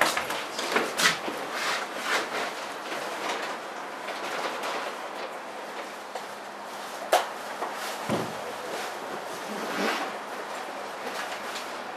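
Cabin noise inside a Chiba Monorail 1000 series car: a steady hiss with scattered clicks and knocks, most of them in the first two seconds, a sharp click about seven seconds in and a low falling tone just after it.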